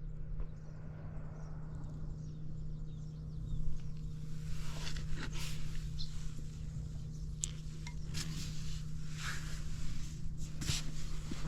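Suzuki Volty's single-cylinder engine idling steadily, with scattered clicks and knocks over it about halfway through and near the end.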